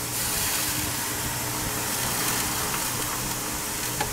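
Pork, potato and pepper skewers sizzling steadily on the grate of an electric steak grill at full power, over the rushing of an electric fan and a faint low hum. A light click near the end.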